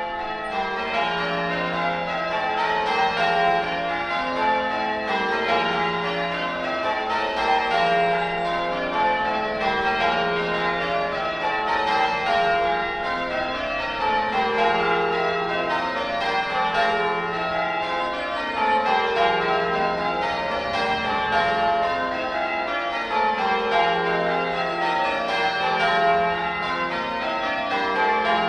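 Church bells in full change ringing on the 1954 Gillett & Johnston ring of eight, the bells striking in an even, continuous stream of rows with long, mellow ringing tones.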